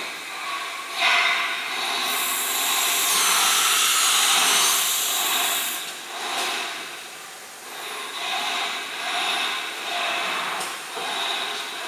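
JCUT 1330 woodworking CNC router running, its motors whirring steadily. A loud hiss comes in about a second in and stays strong for about four seconds before easing off.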